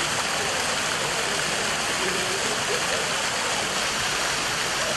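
Outdoor fountain splashing: a steady rush of falling water.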